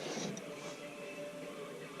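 Light metallic hand-tool handling with a few faint clicks, as bolts on a Ford 9-inch differential third member are snugged up by hand.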